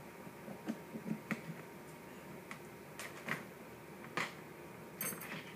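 Irregular light clicks and knocks of Chrony shooting-chronograph parts being handled and fitted together during assembly, with a short cluster of sharper clicks near the end.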